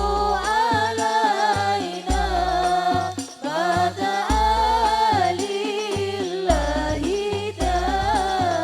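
Singing with a wavering, ornamented melody over a deep bass beat that pulses about once or twice a second.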